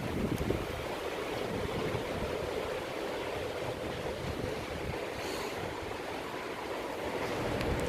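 Hurricane-force storm wind blowing steadily, with gusts buffeting the microphone near the start.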